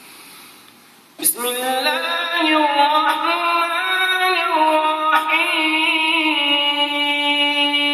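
A man's voice reciting the Quran in a long, melodic chant. It starts suddenly about a second in with a held, ornamented note, then steps down to a lower sustained note near the end.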